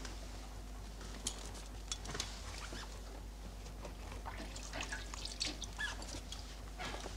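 Faint handling noises of gloved hands working a syringe into a toothpaste tube: small scattered clicks and rustles with a few short squeaks, over a low steady hum.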